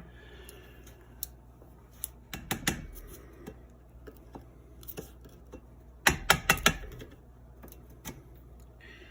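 Scattered light clicks and taps as small parts of a rusty Daisy 105 Buck BB gun are handled during disassembly, with a quick run of sharper clicks about six seconds in.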